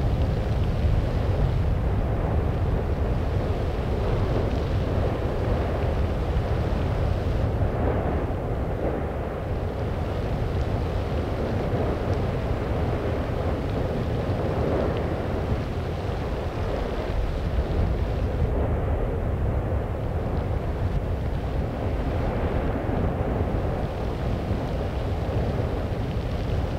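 Steady low rumble and rushing noise of an erupting volcano and its lava flow, with wind buffeting the microphone.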